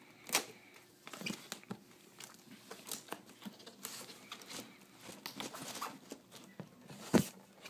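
Cardboard shoebox being handled and opened: irregular light taps, scrapes and rustles, with a louder knock just after the start and another near the end.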